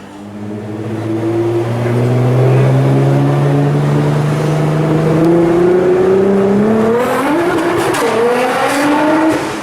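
Nissan GT-R's twin-turbo V6 with a titanium exhaust accelerating hard, its revs climbing steadily for about seven seconds. The revs dip sharply at a quick gear change about eight seconds in, climb again, and then drop off near the end.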